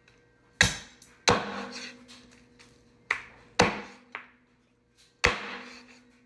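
A heavy cleaver chopping through raw turkey onto a wooden chopping board: five hard strikes at uneven spacing, each followed by a brief ring.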